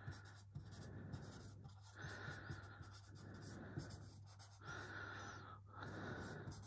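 Whiteboard marker writing words on a whiteboard: a run of faint scratchy strokes, each under a second long with short gaps between, over a steady low electrical hum.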